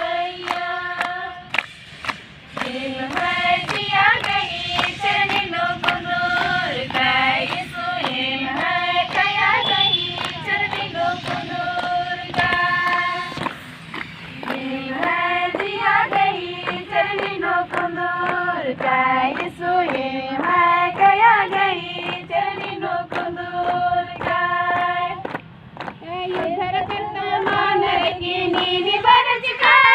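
A group of voices, children and women, singing a devotional song about Jesus together, with hand claps keeping the beat.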